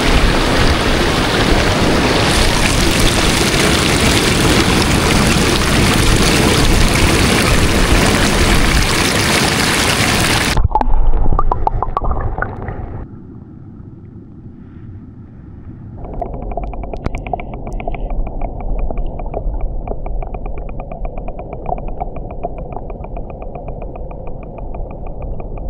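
Loud, steady rush of waves surging over rocks and into a rock pool as the tide comes in. It cuts off abruptly about ten seconds in, giving way to a much quieter steady hum with a fast, even flutter.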